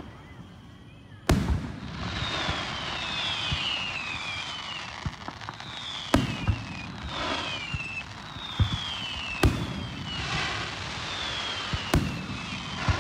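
Aerial fireworks shells bursting: a loud bang about a second in, then more roughly every three seconds, with crackling between them and repeated high sounds that fall in pitch.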